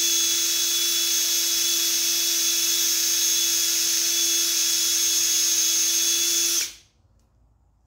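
DeWalt cordless drill running wide open, spinning a chucked engine tappet that is being polished with red Scotch-Brite: a steady, even whine that cuts off suddenly near the end.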